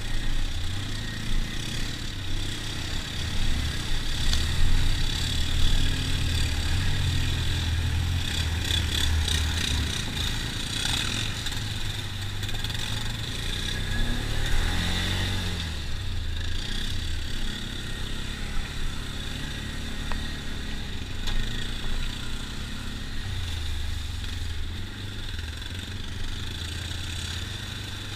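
ATV engine running at low speed with a changing throttle, and water splashing around the wheels while the quad wades through a shallow creek. The engine note rises briefly about halfway through as the machine climbs out of the water onto the trail.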